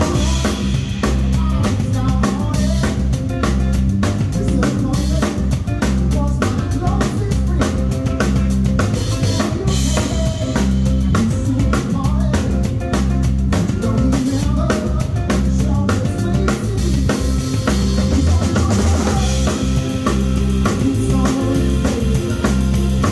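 Live band heard up close from beside the drummer: a Yamaha Tour Custom drum kit plays a steady groove of kick, snare and cymbals, with bass guitar and other band instruments underneath.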